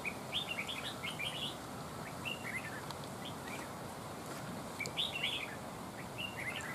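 Red-whiskered bulbul calling in short, quick chirps that come in a few bursts, the liveliest at the start and again about five seconds in.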